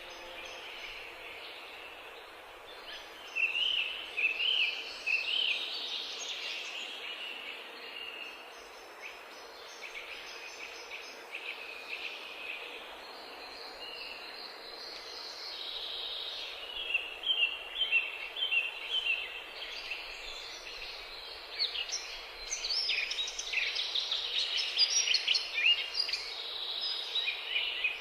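Birds chirping and singing in short, busy phrases over a steady background hiss, growing denser about three seconds in and again in the second half.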